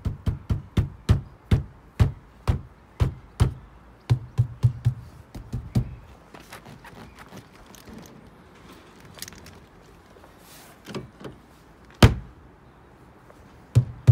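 Footsteps on hard ground, about two a second for the first six seconds, then a few scattered single knocks, one loud and sharp about twelve seconds in.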